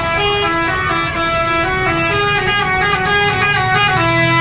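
Tour bus's telolet basuri multi-tone musical horn playing a quick tune of stepping notes, over a low rumble.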